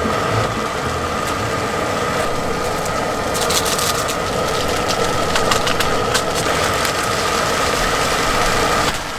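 Steady rushing noise of a small portable gas stove burning under a mess tin, mixed with wind and hail beating on the tent. A few short crackles come about three and a half and six seconds in, and the sound cuts off abruptly just before the end.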